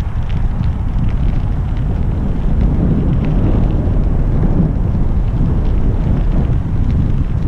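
Wind buffeting a GoPro's microphone while cycling, a loud steady low rumble, with faint ticks of bicycle tyres rolling over a crushed-stone gravel path.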